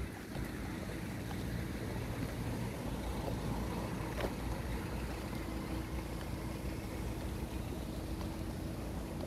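Low outdoor rumble with a distant motor humming steadily, its hum coming in about three and a half seconds in. A single sharp click about four seconds in.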